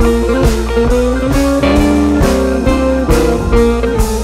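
Background music: a guitar melody with bending notes over a drum kit keeping a steady beat.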